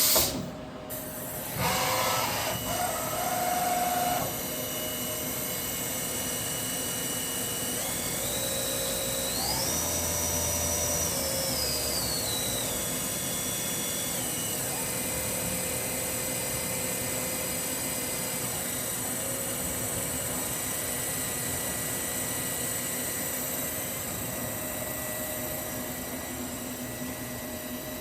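Milltronics RH20 CNC milling machine running with a steady hum and whine. About eight seconds in, the spindle whine steps up in pitch, holds high for a couple of seconds, then steps back down, as the spindle speed is raised and lowered.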